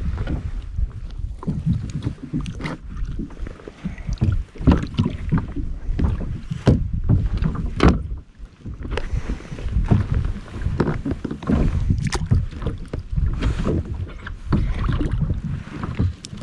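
Irregular knocks, taps and splashes on and around a plastic fishing kayak, over a low wind rumble on the microphone.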